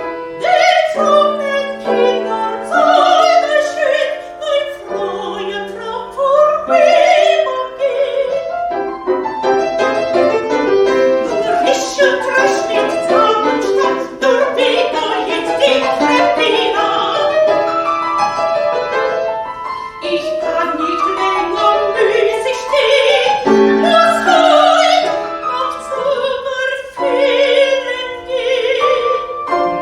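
A classical soprano singing with vibrato over piano accompaniment, in a German art song or operatic aria.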